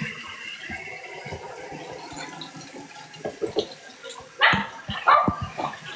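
A dog barking twice, about four and a half and five seconds in, over a faint rush of running water.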